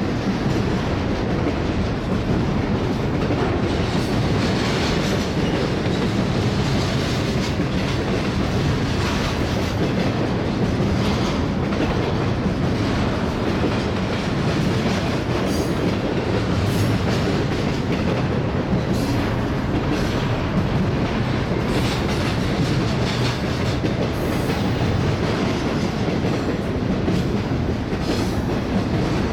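Union Pacific double-stack intermodal train rolling past: a steady rumble of well cars with wheels clicking over the rail joints, and a few brief high wheel squeals.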